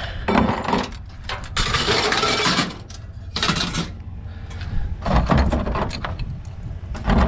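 Scrap metal being handled and shifted while a load is stacked: clinks and knocks, with a longer scraping rattle about two seconds in and another shorter one soon after.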